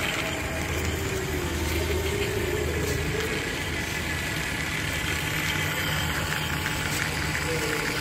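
Small DC electric motor of a homemade remote-control car running steadily, a low hum with a whine that wavers in pitch.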